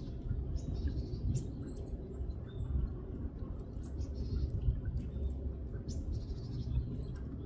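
Small birds calling outdoors: short chirps come and go irregularly throughout, over a steady low rumble.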